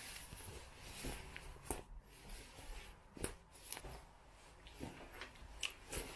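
Rustling of a heavy jacket as it is put on and fastened, with scattered light clicks from handling its front snaps.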